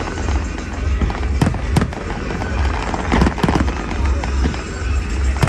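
Aerial fireworks going off: several sharp bangs, two close together about a second and a half in and another just before the end, with softer thumps in between, over a steady low rumble.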